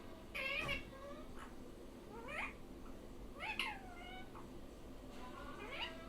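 Pet parrot mimicking a cat's meow: about four separate meow-like calls, each rising and then falling in pitch.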